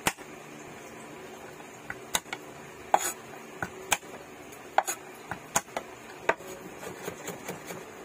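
Chinese cleaver knocking on a wooden cutting board while crushing and chopping garlic cloves: a dozen or so sharp, irregular knocks, roughly a second apart, over a faint steady hum.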